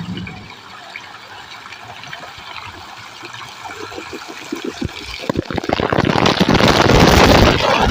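Water splashing and dripping, which about five seconds in builds into a loud rushing downpour of water falling onto a person.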